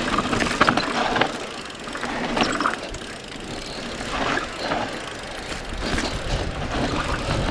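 Mountain bike descending a dirt singletrack at speed: the tyres roll over the dirt, and the chain and frame clatter in short knocks over the bumps.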